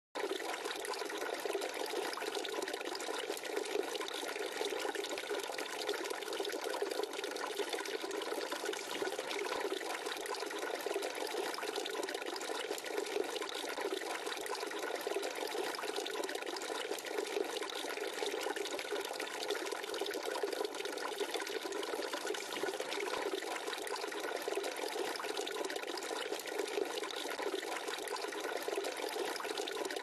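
Garden water fountain running: water pouring steadily from a jug spout and splashing into the milk can and basin below, a constant, unbroken trickle and splash.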